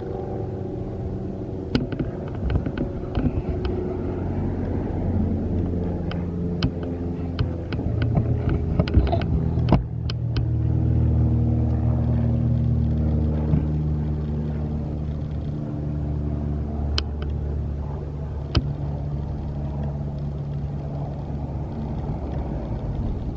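A motor running steadily, its pitch shifting and the sound swelling about ten seconds in, with scattered sharp clicks.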